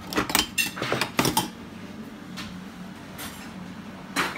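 Kitchen utensils clinking and knocking on a counter and carving board: a quick run of clicks in the first second and a half, then one more knock about four seconds in.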